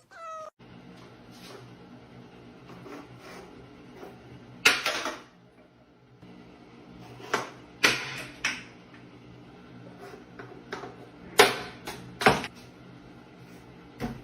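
Several sharp knocks and thuds, about six, scattered irregularly over a faint steady hum.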